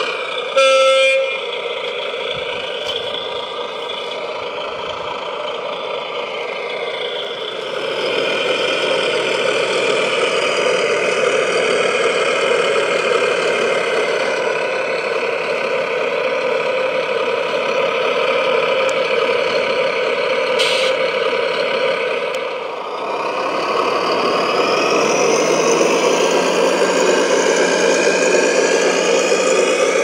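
A short horn toot in the first second, then the electric gear motors of a remote-controlled, all-steel model Volvo A45G dump truck whining steadily as it works. The motor sound gets louder about eight seconds in, dips briefly past twenty-two seconds and comes back with a low tone rising in pitch.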